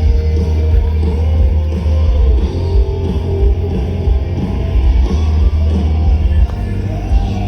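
Rock band playing live with distorted guitars and heavy bass, the sound dull in the top end.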